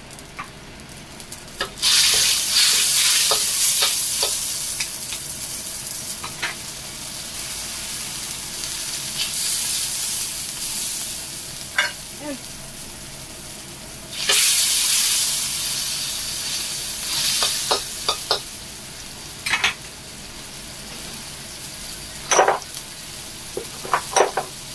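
Canned tuna and its oil sizzling in hot oil in a metal wok, surging loudly about two seconds in and again about halfway through. A spatula scrapes and taps against the wok again and again as the tuna is stirred and broken up.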